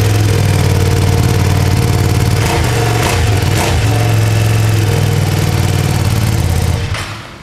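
Ducati Panigale V2's 955 cc Superquadro twin-cylinder engine running steadily on its stock exhaust, then switched off near the end.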